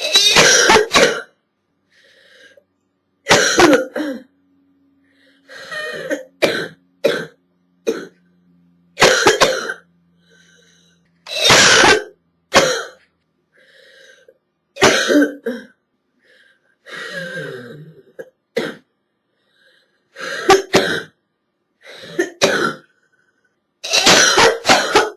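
A girl's hacking chest-cold cough, coming in about a dozen short bouts of one to several coughs every couple of seconds, with silent gaps between them.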